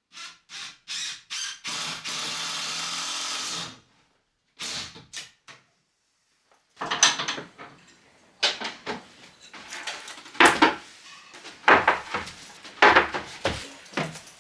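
A power drill run in several short bursts, then held for about two seconds, then two more quick bursts. From about seven seconds in come a series of sharp knocks and clattering.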